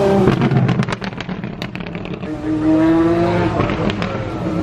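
A supercar's engine passes at speed on a wet track, followed by a run of sharp crackles and pops as the note falls away. About halfway through, the next car's engine is heard approaching, its note rising through a gear and then climbing again.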